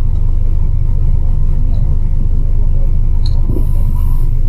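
Wind noise on the camera's microphone: a loud, steady low rumble.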